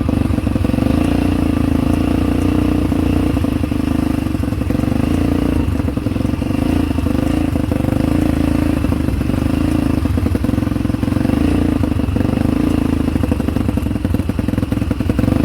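ATV engine running at a fairly steady speed, with rattling and clatter from the machine over rough ground.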